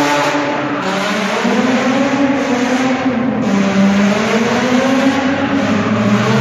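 A car engine revving hard as the car drifts in circles, its pitch swinging up and down several times.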